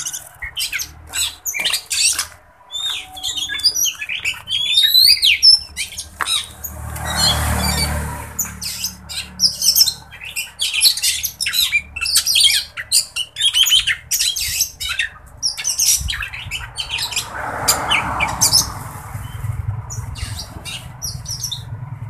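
Caged Oriental magpie-robins (kacer) singing and calling in a busy, rapid stream of sharp chattering notes and whistles, with a few rising whistled glides about four to five seconds in. A softer rustling noise comes twice, around eight seconds in and near eighteen seconds. The keeper takes the bird's full, strong song as a sign it has been sunned enough.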